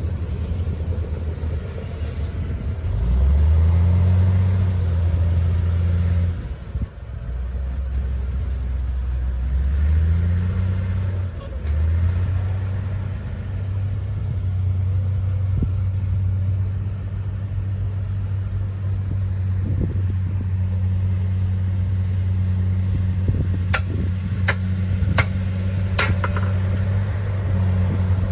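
Komatsu crawler bulldozer's diesel engine working: it revs up about three seconds in, drops back, revs again, then runs steadily under load. Four sharp clicks come a few seconds before the end.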